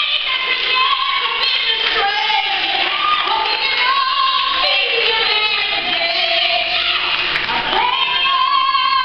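A woman singing a gospel solo in full voice, with long held notes that bend and slide between pitches.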